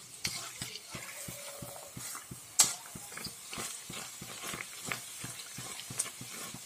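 Nan puri dough sizzling and crackling as it deep-fries in hot oil in a karahi, while a metal slotted spatula presses it down and scrapes against the pan. One loud sharp click comes about two and a half seconds in, and a smaller one near the end.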